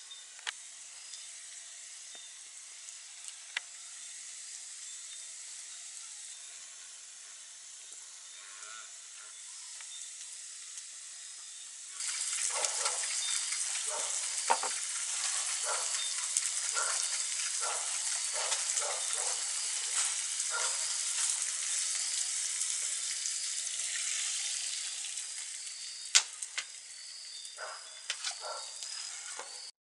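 Tomatoes and eggs frying in a pan over a wood fire: a steady sizzle with scattered pops that becomes much louder about twelve seconds in. Near the end a spatula stirs the pan, and the sound cuts off just before the end.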